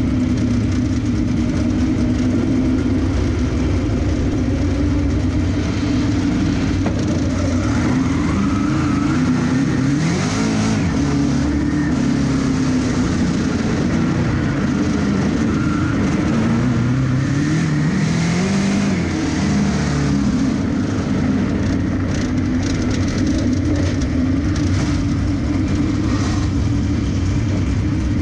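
Dirt-track race car's engine heard from inside the car, running at low speed and revving up and easing off twice, then slowing almost to a crawl near the end.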